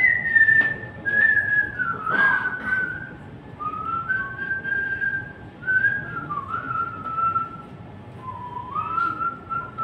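A man whistling a song melody into a handheld microphone: a single clear tune of held notes joined by short slides, in phrases with brief breaks.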